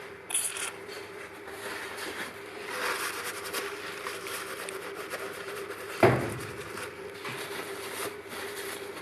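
A short hiss of WD-40 sprayed from an aerosol can into a drilled-out bolt hole in a cast exhaust manifold, followed by handling and scraping noises and one sharp knock about six seconds in, over a faint steady hum.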